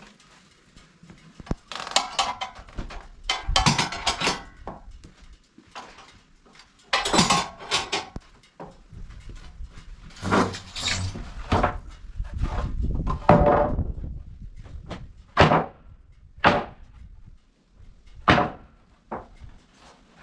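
Sawn wooden boards and offcuts knocking and clattering as they are handled: an irregular series of thuds and clacks, with several short sharp knocks in the second half.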